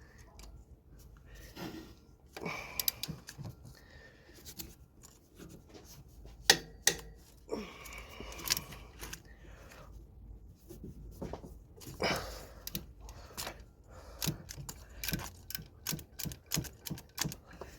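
Irregular metallic clicks and clinks of a wrench and socket working on engine bolts, with a quicker run of clicks near the end.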